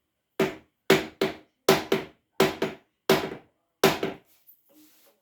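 About ten hammer blows, roughly two a second and often in quick pairs, each with a short ringing tone, pounding on a piston of a seized 1952 Scott Atwater 7.5 hp outboard to break it free and force the crankshaft and flywheel round.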